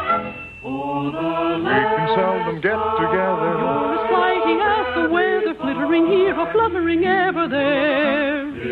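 Music from a 1950s radio musical: a sustained passage of melody lines with wide vibrato, dull and lacking treble as on an old broadcast transcription recording.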